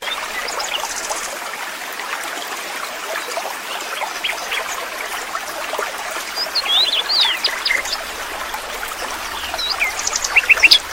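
Steady rush of falling water from a waterfall, with small birds chirping over it in short quick calls, in a flurry about two-thirds of the way through and again near the end.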